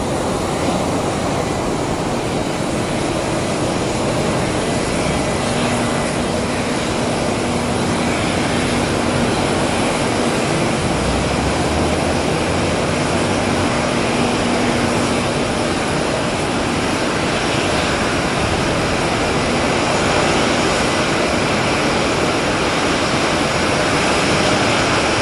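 Jet aircraft engines running on the apron: a steady rushing noise that grows slightly louder toward the end.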